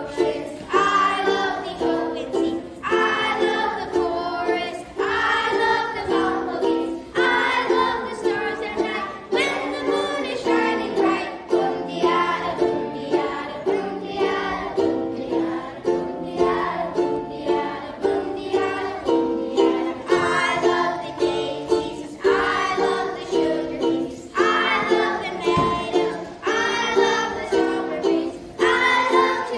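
A group of young children singing a song together, accompanied by a steadily strummed stringed instrument.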